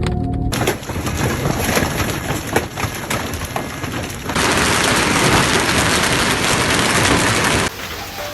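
Large hailstones pelting a car, a dense, continuous clatter of impacts that suddenly grows louder and denser about four seconds in, then drops off abruptly near the end.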